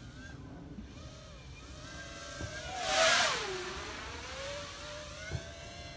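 C220R2-SE custom FPV racing quadcopter's brushless motors and propellers whining in flight. It passes close about halfway through in a loud whoosh, the pitch dropping as it goes by and then rising again as the throttle comes up.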